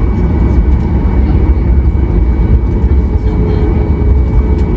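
Steady low rumble inside the cabin of a Boeing 737 MAX 8 on the ground, with a faint high steady whine; a second faint steady tone comes in near the end.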